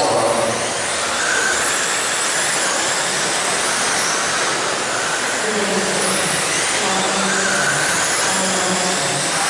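Several RC dirt oval sprint cars with 13.5-turn brushless electric motors racing: a steady mix of motor whine and tyres hissing on the dirt, with faint whines that come and go as cars pass.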